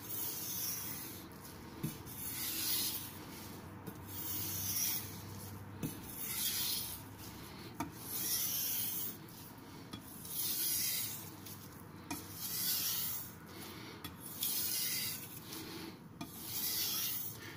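A Tojiro Shirogami carbon-steel nakiri blade is stroked back and forth over a wet King whetstone covered in slurry. It makes a gritty, hissing scrape that swells with each stroke, about once every two seconds. The slurry is grinding the burr off the edge apex at a slightly raised angle.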